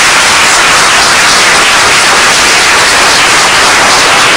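Audience applauding, a loud, steady clapping.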